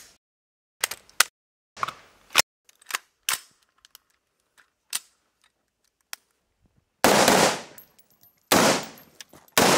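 Gun-handling clicks and clacks as a pistol and an AR-style rifle are loaded: magazines seating and actions working, a dozen short sharp metallic sounds over the first six seconds. About seven seconds in, the rifle fires three shots a second or so apart, each ringing out for most of a second.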